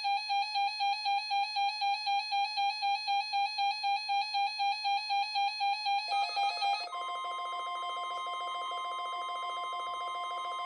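Weather-alert radio receiver's alarm beeping rapidly, about three to four beeps a second. About seven seconds in the beeping stops and a steady warning tone with a second, lower tone takes over: the NOAA Weather Radio warning alarm tone of a weekly test.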